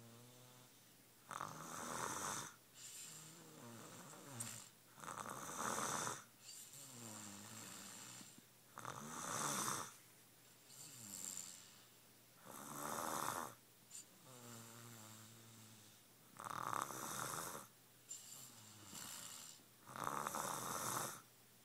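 Snoring in a slow, regular rhythm: a loud, noisy breath about every three and a half seconds, six in all, with a quieter, pitched, wavering breath between each.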